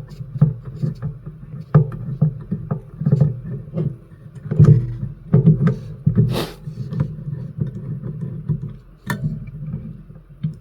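Irregular clicks and knocks of a screwdriver and small metal parts being worked on an old radio chassis as screws are undone, with handling bumps on the bench and a brief hissing scrape about six seconds in.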